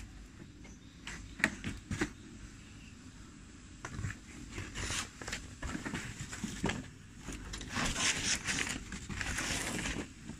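White smoke firework tube hissing unevenly as it burns, in louder spurts about halfway through and again near the end, with scattered sharp clicks over a low outdoor rumble.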